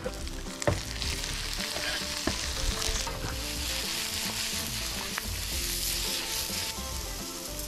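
Sliced mushrooms sizzling in a frying pan on a portable gas camping stove, with a few light knocks as the pan is worked. The sizzle eases near the end.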